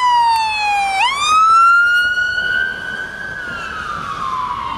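Fire-department SUV's siren wailing as the vehicle passes and pulls away. The pitch falls, sweeps quickly back up about a second in, holds, then slowly falls again, growing quieter over the second half.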